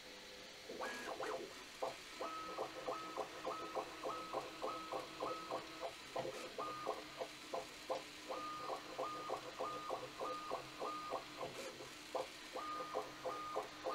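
Bambu Lab A1 3D printer's stepper motors whining as the print head zigzags back and forth across the bed at standard speed, the pitch stepping up and down about twice a second with each change of direction.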